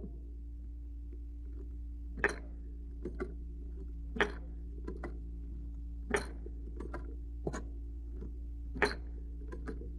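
Browning cloth-belt loading machine being worked by hand to load cartridges into a cloth belt: sharp metallic clacks, the strongest about every two seconds with lighter clicks between, over a steady low hum.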